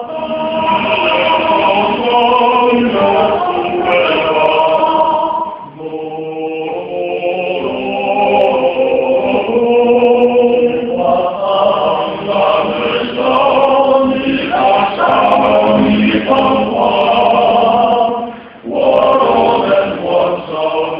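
A small male vocal ensemble singing in harmony, with sustained notes and brief breaks between phrases about six seconds in and near the end.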